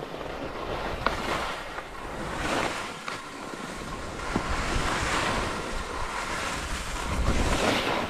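Skis hissing and scraping across firm snow, swelling with each turn, with wind rumbling on the microphone.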